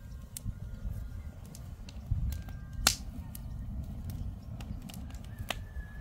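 Wood fire crackling under a cooking pot, with scattered sharp pops, the loudest about three seconds in, over a low steady rumble.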